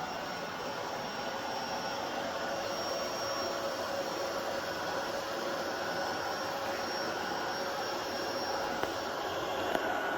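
FourAmZ V100 Pro robot vacuum running, its suction motor and brushes making a steady whirring rush with a faint high whine on top.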